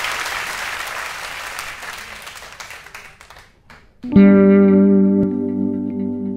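Audience applause fading out, then about four seconds in a clean electric guitar chord rings out and is held.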